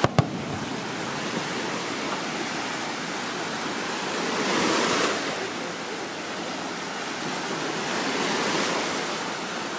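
Ocean surf washing up on the shore: a steady rush that swells twice, about halfway through and near the end. Two sharp clicks come right at the start.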